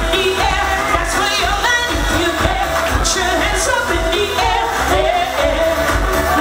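A woman singing into a microphone over loud amplified pop music with a steady, pulsing bass beat.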